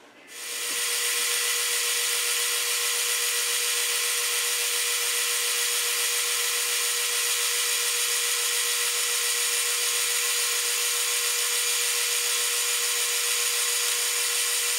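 Metal-turning lathe running under cut, its tool turning down a 3/4-inch bar: a steady whine with an even hiss over it. It starts up within the first second, then holds level.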